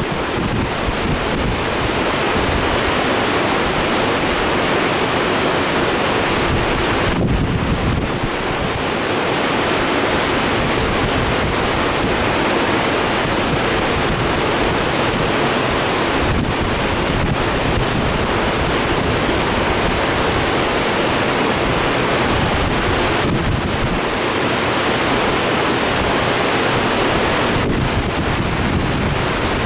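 Loud, steady rushing of a creek running high and turbulent below a dam after rain, with wind buffeting the microphone.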